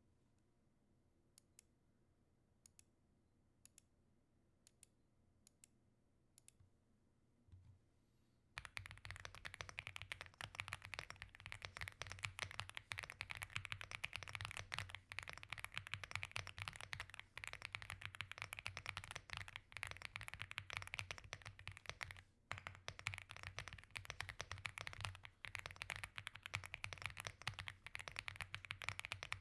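Aula F75 gasket-mount mechanical keyboard with stock LEOBOG Reaper linear switches being typed on. Six single clicks about a second apart come first, then continuous fast typing starts and runs on, broken once by a short pause.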